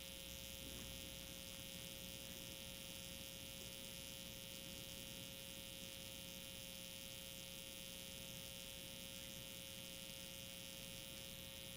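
Faint, steady electrical hum with a few constant tones over background hiss; nothing else happens.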